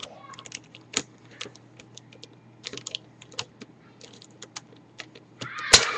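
Plastic pieces of a V-Cube 5 puzzle cube clicking and rattling irregularly as it is pulled apart, with one sharper, louder click near the end.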